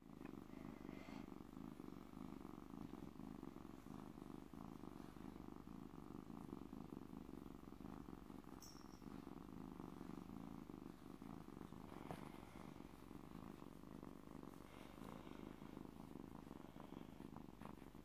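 Kitten purring steadily and without a break while being stroked.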